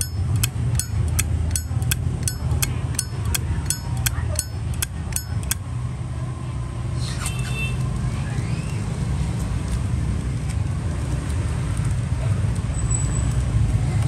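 Zippo lighter lid clicked open and shut over and over: crisp metallic clacks, about three a second, stopping about five and a half seconds in. One more clink comes about seven seconds in, over a steady low rumble.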